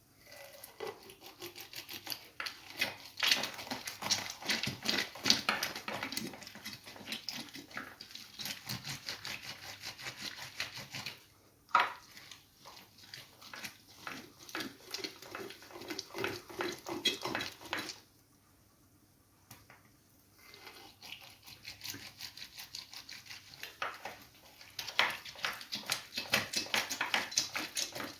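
A lemon being squeezed by hand for its juice: rapid wet crackling and scraping in long spells, with a sharp knock a little before twelve seconds in and a short pause about eighteen seconds in.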